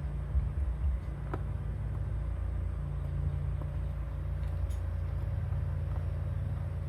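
Steady low rumble of a car heard inside the cabin, with a few faint clicks.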